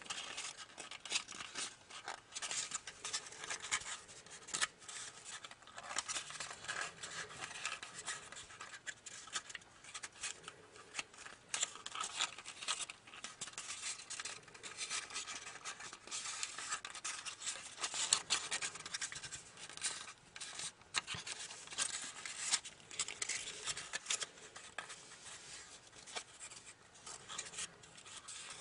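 Origami paper rustling and crackling as fingers fold it and press creases, with irregular small crinkles and scrapes.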